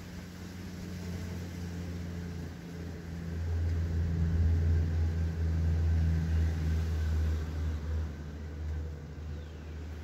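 Low engine rumble of a passing motor vehicle, swelling from about three seconds in and fading again near the end.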